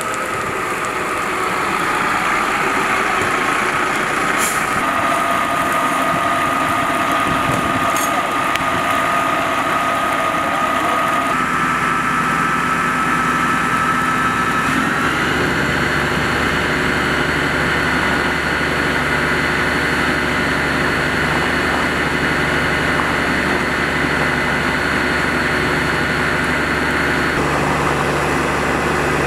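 Fire engine's engine and pump running steadily while the crew feeds a foam line. The note changes in steps about eleven and fifteen seconds in, with a deeper hum joining at the first step.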